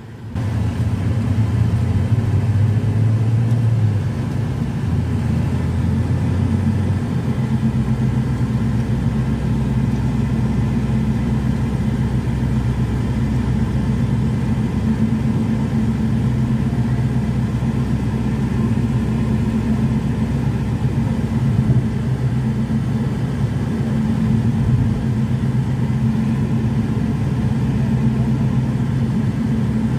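Car engine and road rumble heard from inside the cabin while driving. The engine note drops in pitch twice in the first several seconds, then runs steady.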